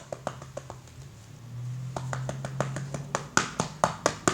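A run of sharp taps and clicks from hands handling a container, sparse at first, then quicker, about four a second, and louder in the second half.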